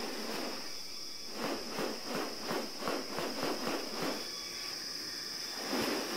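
Rainforest ambience: a steady, high-pitched insect drone throughout. From about a second and a half in to just past three seconds, a quick series of pulses sounds at roughly six a second.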